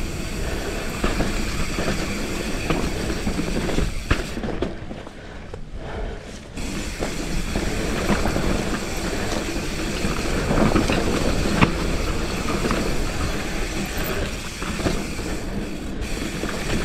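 Commencal Clash mountain bike descending a dirt trail at speed: a steady rush of tyre and riding noise with the frame and chain rattling over bumps. It drops away briefly about five seconds in, then picks up again.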